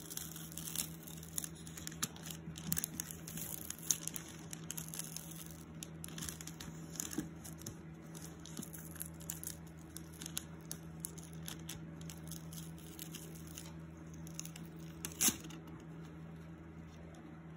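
Wrapping paper crinkling and tape being picked at and peeled off a paper-wrapped shoebox, in many short crackles with a louder one about fifteen seconds in. A steady low hum runs underneath.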